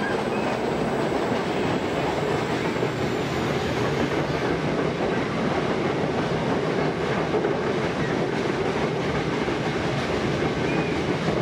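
Passenger train running through a brick-lined tunnel, heard from inside the carriage: a steady, loud rumble of wheels on rails.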